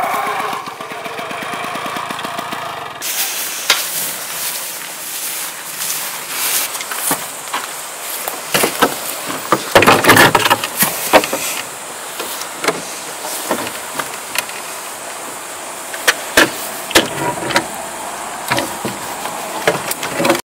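A small moped engine runs steadily for the first three seconds and then cuts off abruptly. After that come scattered knocks, clicks and clatter of handling on a wooden hunting stand, with a louder burst of scraping and crackling about ten seconds in and sharp clicks of a rifle being set on the wooden rail near the end.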